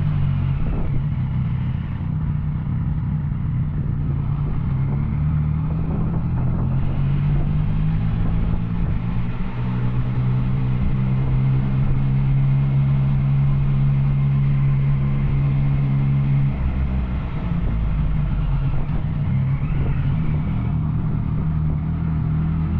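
Yamaha Tracer 900's inline three-cylinder engine through an Arrow exhaust, riding along. Its note holds steady for several seconds in the middle, then eases off and changes.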